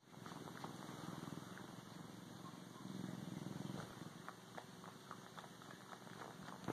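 Bobcat purring steadily, a low rapid rumble that swells a little in the middle, with scattered soft clicks as she suckles on a pillow.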